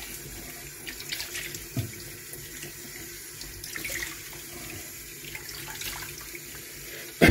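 Kitchen tap running steadily into a stainless steel sink while hands are washed under the stream. A short loud sound cuts in at the very end.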